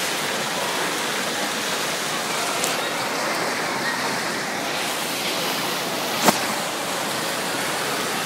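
Steady rushing and splashing of a pool water jet spraying up and falling back onto the water, with one sharp tap about six seconds in.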